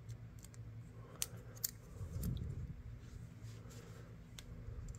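Faint clicks of small metal knife parts being handled and fitted together, the fish knife's scaler blade going onto a liner's pins. A couple of sharp clicks come about a second in and another near the end, over a low steady hum.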